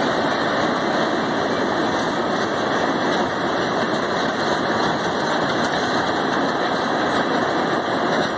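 Lake Superior & Ishpeming ore hopper cars rolling past on the rails: a steady, loud rumble of steel wheels on track.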